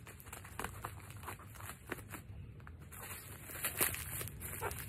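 Bubble wrap and packing tape crinkling and crackling in irregular clicks as a tightly taped parcel is cut and pulled open by hand, loudest near the end.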